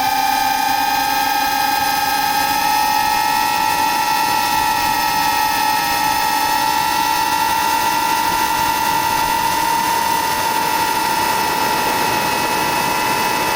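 Electric motors and propellers of an FPV model aircraft running at steady throttle: a constant high whine with overtones, its pitch creeping up slightly.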